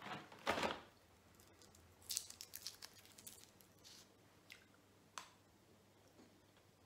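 Foil wrapper crinkling and crackling in short spells as a small Kinder chocolate egg is peeled by hand, after a brief loud rustle of the cardboard calendar tray about half a second in.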